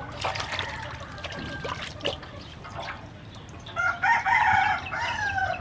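A rooster crows once, loud and drawn out with a falling end, starting a little under four seconds in. Before it, water splashes and drips as a whole fish is rinsed in a metal basin and lifted out.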